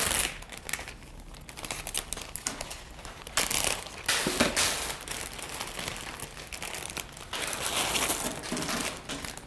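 Plastic zip-top storage bags crinkling and rustling on and off as they are opened and handled, with dry cereal pieces being poured from a small bag into a larger one.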